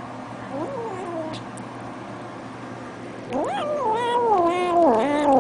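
Hungry cat meowing twice: a short meow about half a second in, then a long, drawn-out meow with a wavering pitch starting about three seconds in.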